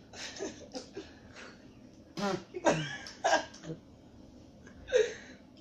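Short cough-like vocal bursts from young men, three in a row about two seconds in and one more near the end, with a few small clicks before them.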